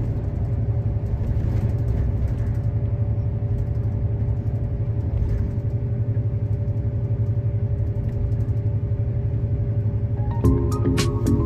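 Steady low rumble of a moving road vehicle under background music that holds two steady notes. The music's plucked notes come back near the end.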